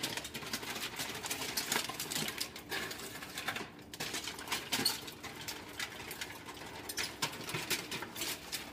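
Aluminium foil crinkling and crackling in hands as a foil packet is worked open and emptied into a bowl: an uneven run of sharp crackles and rustles.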